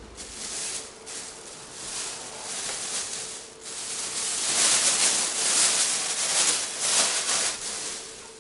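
Rustling, hiss-like noise that swells to its loudest a little past the middle and then fades, over a faint steady hum.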